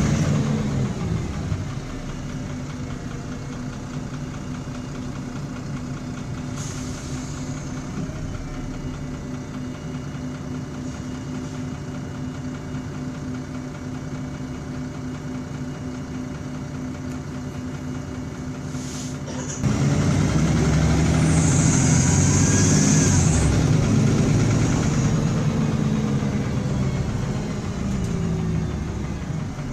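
MAN city bus diesel engine heard from inside the cabin, running down to a steady, rattly idle while the bus stands. About twenty seconds in it revs up sharply as the bus pulls away, its pitch rising and falling as it accelerates through the gears.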